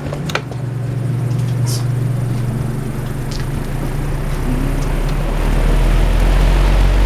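A fan's switch clicks right at the start, then the electric fan runs, its rush of air growing steadily louder as it speeds up, with a deeper rumble coming in about five seconds in.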